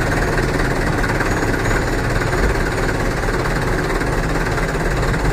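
Dump truck's diesel engine idling steadily, driving the hydraulic hoist during a test of the newly fitted tipper body.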